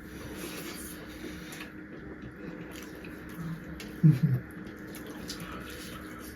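Wet eating sounds of people chewing and mixing soupy food, with small scattered clicks and smacks. A brief low voice-like sound comes about four seconds in.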